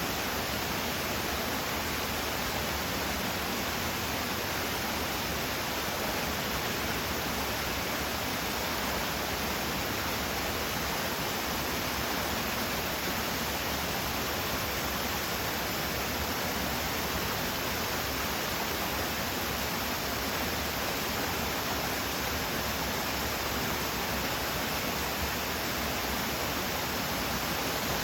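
Mountain stream in a gorge flowing steadily: a constant, even rushing of water.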